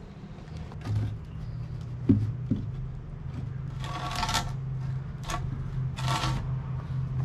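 Wood knocking and scraping as a large log is levered and slid across a timber log bunk: two sharp knocks about two seconds in, then several short rasping scrapes, over a steady low hum.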